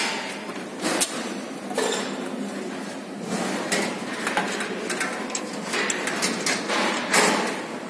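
Screwdriver and hands clicking and knocking against an Ilve Majestic oven door's glass panels and metal trim: a string of irregular sharp taps, the loudest near the end.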